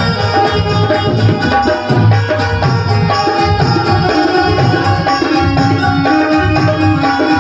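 Instrumental interlude of a Bhojpuri folk song: hand drums play a steady rhythm under held melodic notes, with no singing.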